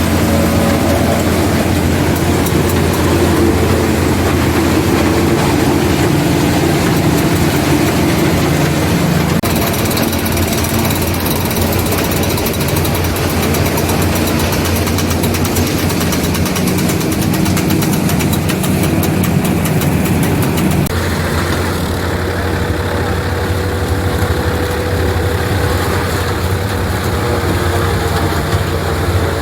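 Tractor and forage harvester running steadily while chopping maize for silage: a continuous engine drone over a dense rushing hiss from the machine. The mix shifts abruptly twice, about a third and two-thirds of the way through.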